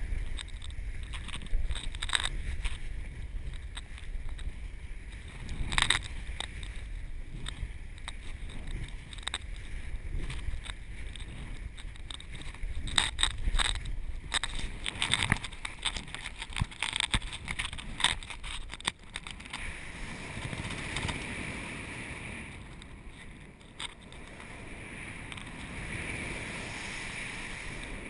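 Wind buffeting a camera microphone carried on a paraglider pilot's gear during aerobatic manoeuvres: a low rumble with scattered crackles and flaps. From about twenty seconds in it becomes a steadier rush of air that swells and fades.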